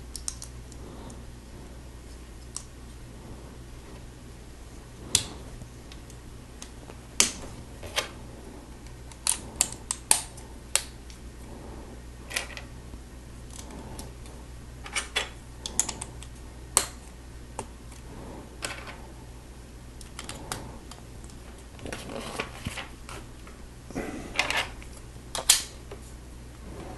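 Plastic Lego bricks being handled and pressed together: irregular sharp clicks and clatters, a few at a time, over a low steady hum.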